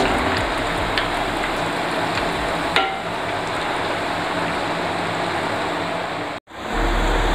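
Breadcrumb-coated chicken cutlets shallow-frying in hot oil, a steady sizzle, with a couple of light clicks of a utensil against the pan. The sound cuts out for a moment near the end and comes back.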